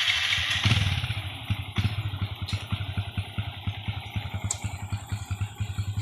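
Motorcycle engine running steadily with an even, rapid low pulse, which comes in strongly a little under a second in.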